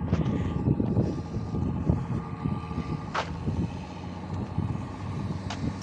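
Heavy diesel construction-machine engine idling steadily, with wind buffeting the microphone and a sharp metallic click about three seconds in.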